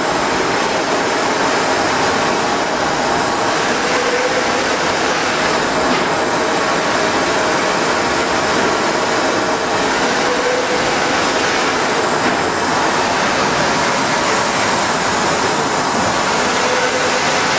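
Flatbed UV printer running: its print-head carriage travels back and forth across the bed with a steady mechanical noise that shifts slightly every three seconds or so.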